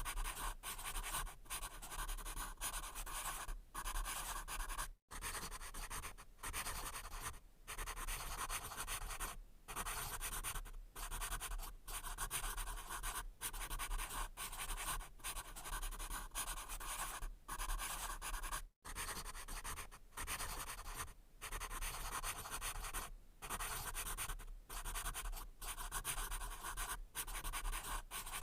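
Pencil writing on paper: continuous scratchy strokes broken by short pauses between words, with two brief full stops.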